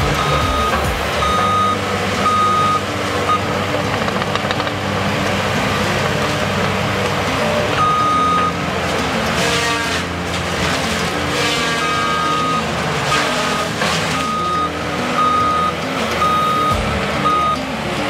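Diesel engine of a CAT compact track loader with a disc mulcher running under load, its back-up alarm beeping in runs of short single-tone beeps, a little under two a second, that stop and start again as the machine reverses and turns.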